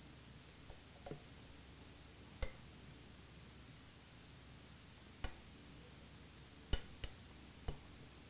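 Faint, scattered clicks and light taps, about seven in all, as an oil-soaked paper gasket is fitted over the metal oil screen and onto the studs of an AeroVee engine case.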